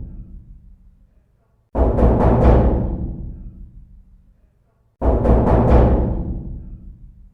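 Heavy, booming knocking on a door: two quick clusters of knocks about three seconds apart, each ringing out with a long echoing tail that fades over about two seconds.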